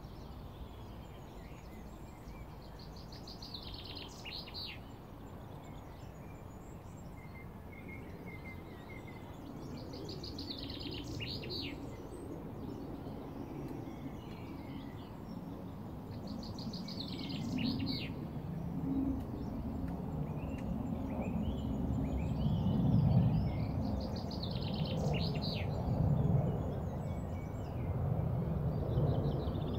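A small songbird singing the same short trilled phrase several times, about every seven seconds, with faint chirps in between. Under it runs a low rumbling outdoor background noise that grows louder in the second half.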